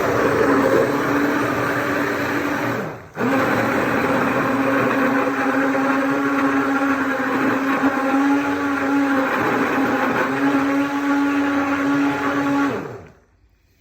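Electric kitchen mixer motor running steadily as it blends a cheese sauce with spices. About three seconds in it winds down, pauses briefly and starts again, then winds down with falling pitch and stops near the end.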